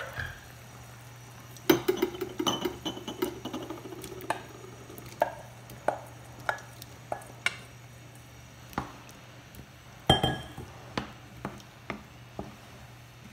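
Cubed chayote scraped off a board into a pan of boiling broth with a wooden spoon: a quick clatter of knocks and taps, then scattered single knocks of the wooden spoon against the pan as the pieces are stirred in, with one louder knock near the end.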